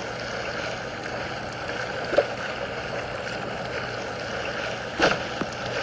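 Steady sound of running water, with a couple of short clicks about two seconds in and near the end.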